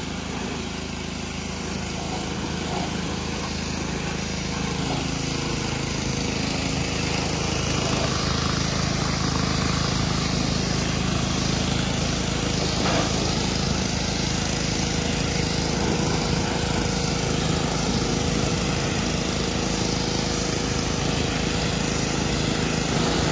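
Pressure washer running steadily: its small engine hums under the hiss of the high-pressure water jet from the wand.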